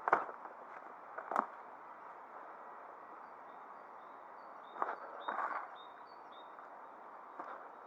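Storm-drain stream of runoff water flowing steadily through a ravine, with a few short crunching steps or knocks and faint high bird chirps in the background.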